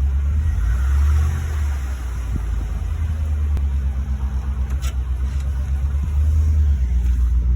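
2004 Chevrolet Silverado's 5.3-litre V8 running with a steady low drone, and a short high chirp about five seconds in.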